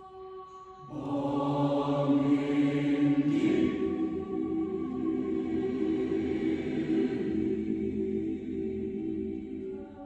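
Choir singing a held chord that swells much louder about a second in and is sustained until near the end, then falls back to softer held notes.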